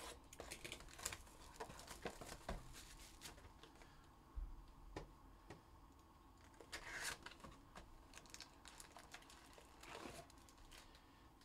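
Faint, scattered handling noises of trading-card boxes and their plastic wrap: light clicks, taps and brief crinkling and tearing.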